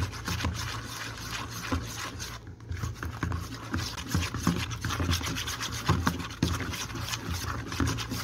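Metal mixer beater scraping and slapping through thick creamed butter and condensed milk in a bowl, a quick continuous rubbing with many small clicks.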